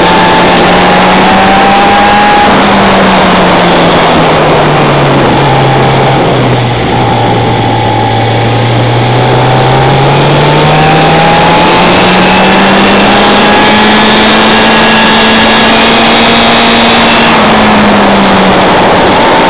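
Onboard engine note of a vehicle at speed on a race circuit, loud, under heavy wind rush on the microphone. The engine pitch falls from about a quarter of the way in, bottoms out near the middle with a brief dip in loudness as the vehicle slows for a corner, then rises steadily again under acceleration and eases near the end.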